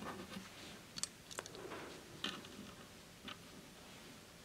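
A handful of faint, scattered clicks of small metal parts being handled and fitted during assembly of an aluminium-and-steel model engine kit.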